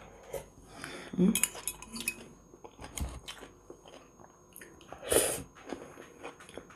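A fork clinking and scraping against a bowl as someone eats a fresh vegetable salad, with biting and chewing in between and a louder noise about five seconds in.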